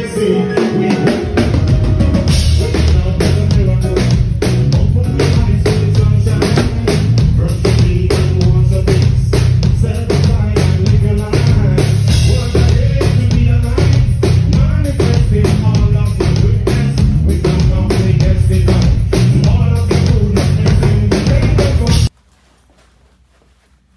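Loud band music without vocals, driven by a drum kit with bass drum and snare and a heavy bass line, that cuts off suddenly near the end.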